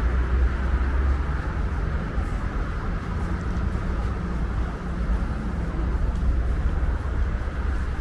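City street traffic: a steady low rumble of passing vehicles, with the hum of an engine faintly audible in the middle.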